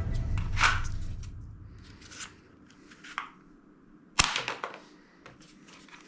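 Background music fading out, then a few separate sharp snaps from toy guns being fired, the loudest about four seconds in.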